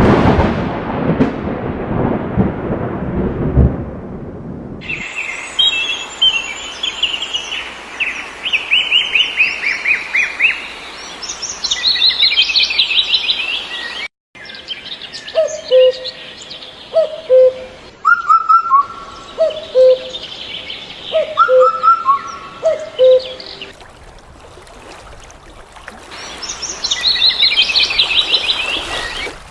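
Small birds chirping and giving fast high trills, after a few seconds of low rough noise at the start. Later a lower two-part call repeats every second or two under the chirping.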